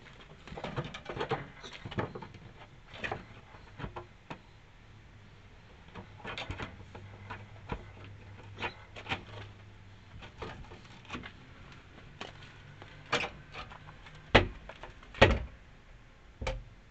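Scattered knocks and clunks of a wooden shed door being handled on its freshly greased homemade metal hinges, ending in two loud thuds about a second apart.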